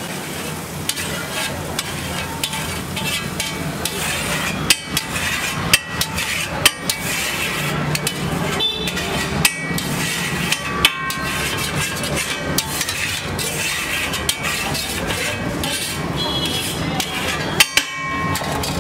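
A long metal spatula scraping across a large flat metal griddle, with a few sharp metal-on-metal knocks scattered through.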